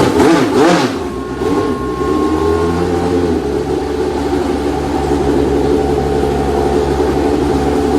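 Benetton B190 Formula 1 car's Ford Cosworth V8 running just after start-up: revved in quick blips through the first second, then settling to a steady idle.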